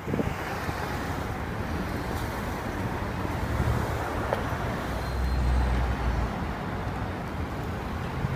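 City street traffic noise: a steady wash of passing vehicles, with a heavier low rumble swelling for about a second around five seconds in.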